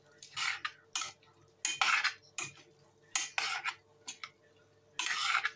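Metal spoon scraping and clinking against a stainless steel saucepan while glass noodle salad is tossed and mixed, in a string of short, irregular strokes, the longest near the end.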